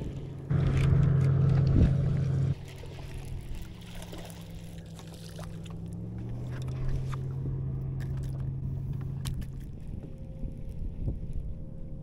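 Bass boat's electric trolling motor humming: it comes on loud about half a second in and cuts off about two seconds later, then runs more quietly, its pitch dropping a step near the middle before it stops near the end. Scattered clicks and rattles of a baitcasting reel and tackle as a bass is reeled up to the boat.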